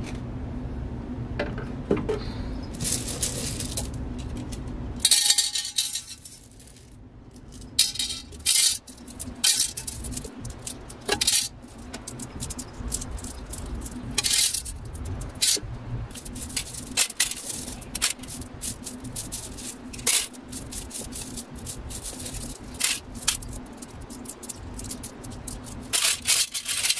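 Small pebbles clinking and clattering against each other and a glass planter as they are handled and put back in by hand: an irregular scatter of sharp clicks with a denser rattle about five seconds in. A steady low hum runs underneath.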